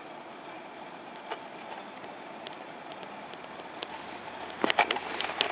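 ED2T electric train rolling slowly into the platform with a steady running noise, a few scattered clicks and squeaks, then a loud cluster of sharp clacks and squeals near the end as it arrives.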